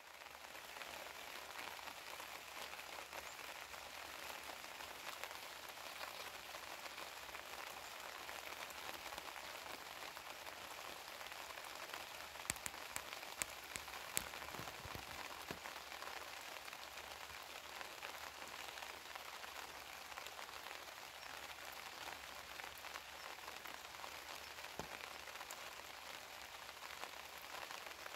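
Steady rain falling on lotus leaves, an even patter that fades in at the start. A few sharper drop ticks stand out about halfway through.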